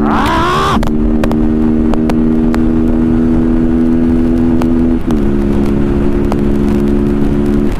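Motorcycle engine running at a steady pitch under way. A short rising whine sounds at the very start, and the engine pitch drops a little about five seconds in, then holds steady again.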